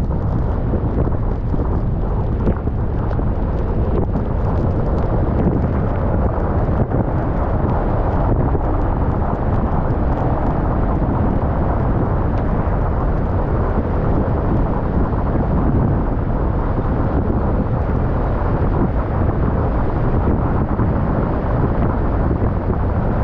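Steady road and wind noise from a car driving along, low-pitched and even throughout.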